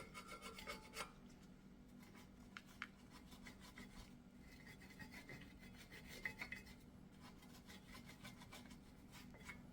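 Wire brush scrubbing brake dust off the brake hardware where the pads sit: faint, quick scratching strokes.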